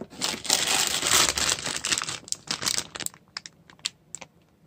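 Clear plastic parts bags crinkling as they are handled: a dense rustle for about two seconds, then scattered sharp crackles that stop shortly before the end.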